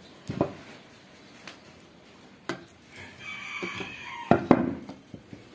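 A rooster crowing once in the background, one drawn-out call of about a second, a little past the middle. Around it, a few sharp clicks and knocks from parts being handled on a work surface.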